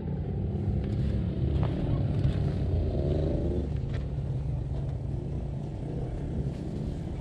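A motor-vehicle engine idling steadily, a low even rumble, with a few light clicks and rustles close by.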